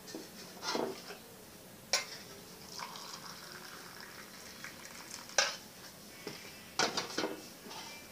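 A spoon and cup clinking while instant coffee is mixed: a few separate sharp clinks seconds apart, then a quick cluster of three near the end.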